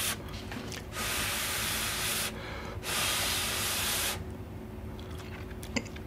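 A person breathing hard in long hissing breaths, about one every second and a half, close to the microphone while chewing, with a few faint clicks near the end.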